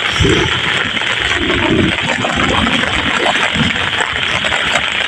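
Steady heavy rain hiss, with muddy water splashing and sloshing around feet wading through a flooded rice paddy in a few heavier surges.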